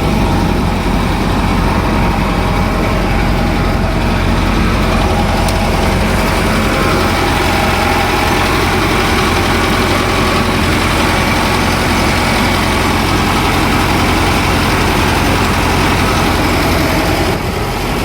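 Old combine harvester's engine running steadily, heard up close, with its machinery turning.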